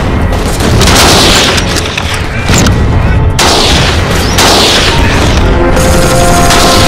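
Battle sound effects: a run of heavy explosion booms, each fading out over a second or so, mixed with gunfire, over a music score that comes through more clearly near the end.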